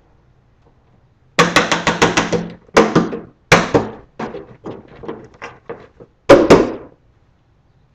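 Hand pats and thumps on a Canada goose decoy as flocking is worked onto its painted tail end: a fast run of about eight pats a second, then scattered blows, with two of the loudest near the end.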